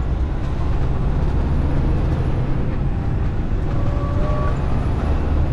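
Peterbilt 579 semi truck under way, heard from inside the cab: a steady deep engine drone mixed with road noise.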